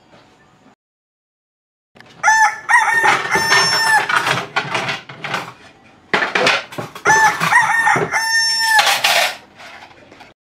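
A rooster crowing twice, starting about two seconds in, each crow about two seconds long with a held note that drops at the end, with chickens clucking around the crows.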